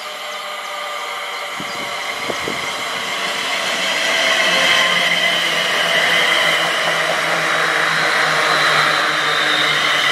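London Northwestern Railway Class 350 electric multiple unit running through the station at speed. The rumble of wheels on rail grows louder over the first few seconds as it approaches, with a few sharp knocks about two seconds in, then holds steady as the coaches pass close by.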